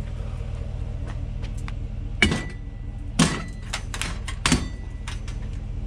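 A heavy brass headboard clanking and knocking as it is handled: about five sharp metal knocks, the first two followed by a short ringing tone. Underneath is a steady low engine hum from the idling truck.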